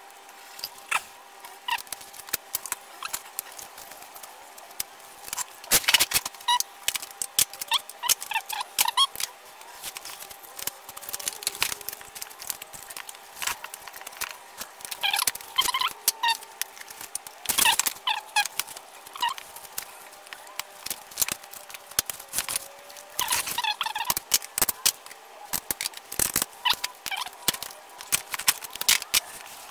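Sped-up time-lapse sound of a 26cc two-stroke trimmer engine being taken apart by hand: a quick, irregular run of clicks, knocks and rattles from a ratchet spanner and the plastic housing, with short squeaky chirps among them. A faint steady hum runs underneath.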